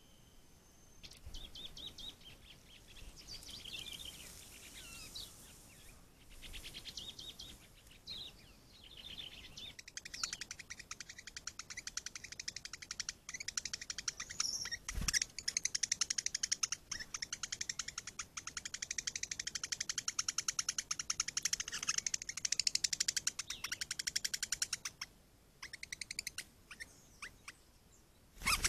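Small birds chirping and calling, with a long stretch of rapid, closely repeated notes through the middle. A single sharp click comes about halfway through.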